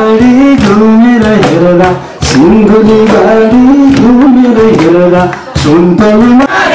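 A song playing: a voice singing a melody over a drum beat.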